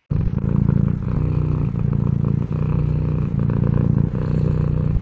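Cat purring loudly, close to the microphone: a steady, low, rhythmic rumble with slight dips every second or so as the cat breathes.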